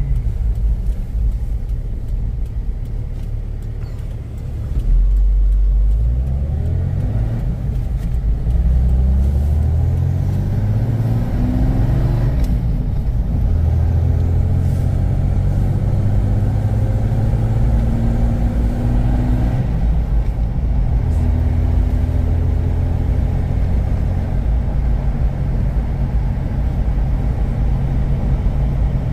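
Car engine heard from inside the cabin, pulling away and climbing in pitch from about five seconds in. The pitch dips at gear changes near twelve and twenty seconds, then the engine runs steady at cruising speed.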